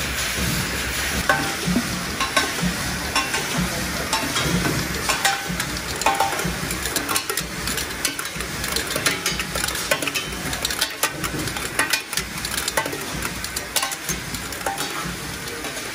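Plastic bottle caps clattering down an outfeed chute and dropping into a box, a dense, irregular run of small clicks over the steady running hum of an automatic cap-assembly machine.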